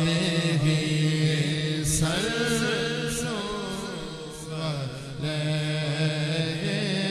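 A man's voice reciting a naat, devotional poetry sung without instruments in long, wavering held notes, over a steady low hum.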